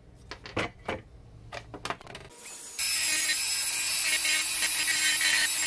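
A few knocks as the aluminium drive-unit housing is handled. Then, about three seconds in, a Dremel rotary tool with a router bit starts and runs steadily at high speed, grinding a little aluminium away from the housing.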